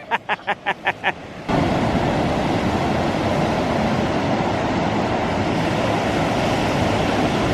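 Ocean surf breaking with wind buffeting the microphone, a steady rushing noise. In the first second and a half there is a quick run of short, evenly spaced pitched pulses, about six a second, before the surf sound cuts in.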